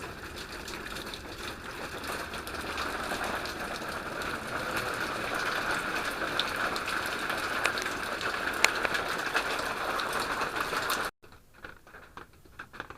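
Small waterfall running: a steady rush and splash of falling water that swells slightly midway. About eleven seconds in it cuts off suddenly, leaving only faint irregular taps.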